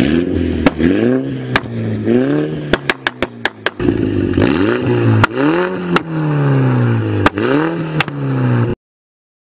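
Mini hatchback with an Armytrix aftermarket exhaust, its engine revved repeatedly at a standstill, each rev rising and then falling in pitch. Sharp pops and crackles come off the exhaust on the overrun, with a quick run of several pops a little before the middle. The sound cuts off suddenly about a second before the end.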